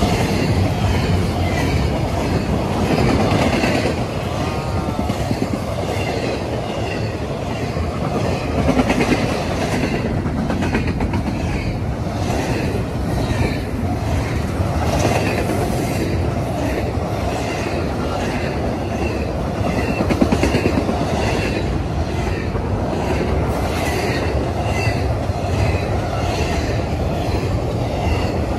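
Double-stack intermodal freight cars rolling steadily past at speed: a continuous rumble of steel wheels on rail, with wheels clicking over rail joints in a steady rhythm.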